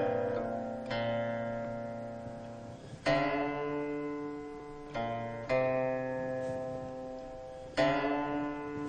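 Background music: slow plucked-string chords, struck about five times, each ringing out and slowly fading.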